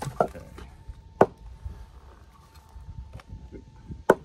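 Sharp wooden knocks from a hatchet and split pieces of seasoned oak on a chopping block: a loud knock about a second in, a faint one later and another loud one near the end.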